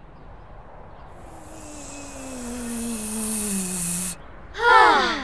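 Cartoon whoosh sound effect: a hissing rush that swells over about four seconds with a slowly falling tone beneath it, then cuts off suddenly. A short, falling voice exclamation follows near the end.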